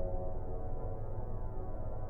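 Dark ambient music: held notes over a steady low rumble.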